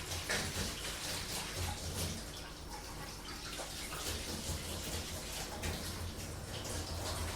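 Tap water running and splashing during dishwashing, with short knocks throughout, over the low steady hum of a washing machine.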